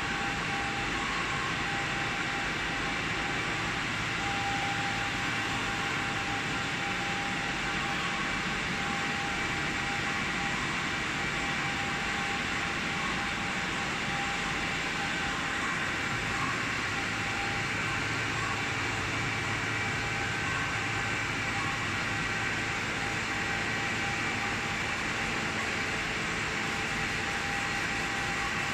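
Steady industrial machinery running: a constant rushing noise with a few steady whining tones and a low hum.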